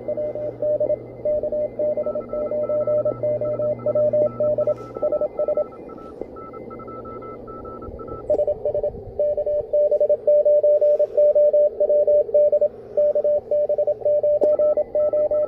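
Morse code (CW) coming through a shortwave ham receiver on a busy contest band: a tone near 600 Hz keyed on and off in dots and dashes over steady band hiss, with a weaker, higher-pitched station keying at the same time. The main signal stops for about two seconds past the middle, then comes back louder.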